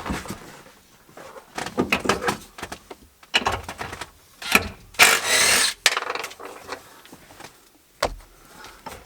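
Irregular knocks, clicks and rubbing from car interior trim and hand tools being handled, with a short rush of scraping noise about five seconds in.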